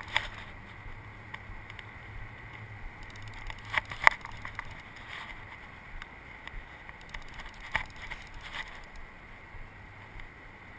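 A few sharp knocks from a fishing rod and reel being handled against a metal railing, the loudest pair about four seconds in, over a steady hum of distant traffic.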